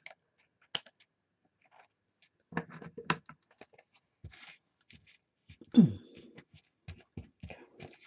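Scissors snipping paper and then set down on the tabletop, followed by paper being handled: scattered small clicks, snips and rustles, with a louder knock about six seconds in.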